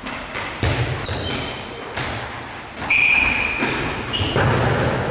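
Indoor football on a gym floor: ball kicks and footfalls thudding, with short high squeaks of shoes on the floor. About three seconds in comes one louder, steady high squeal lasting under a second.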